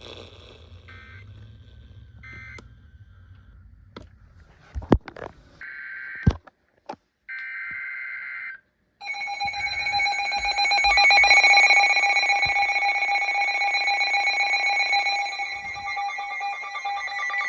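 Emergency Alert System broadcast starting on a radio: two short bursts of warbling digital header data, then about a second later a loud, steady two-tone attention signal that holds to the end. This is the alarm that announces an incoming weather warning.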